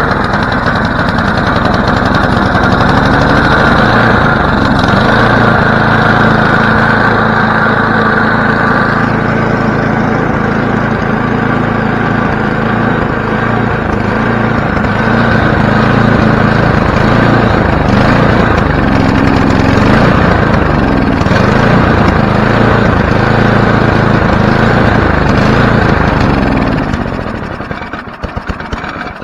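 Tecumseh engine of a Toro 824 XL snowblower running steadily at full throttle, then winding down and stopping near the end; the owner thinks it may have drawn more gunk into the carburetor.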